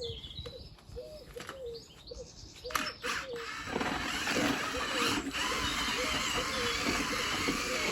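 Electric paddle mixer stirring cement-based tile adhesive in a bucket, running steadily from about halfway through after a few knocks.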